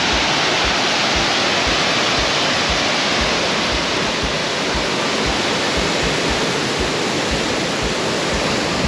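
Waterfall swollen by heavy rain, a steady, loud rush of falling water.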